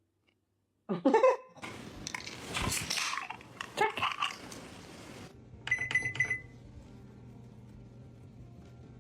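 A parrot's loud rising squawk about a second in, then several seconds of noisy rustling and scuffling broken by shorter cries. Near the middle come four quick high beeps in a row, over a steady low hum.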